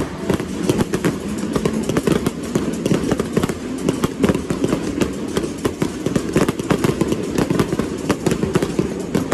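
Fireworks crackling and popping continuously, many sharp reports a second over a steady rumble.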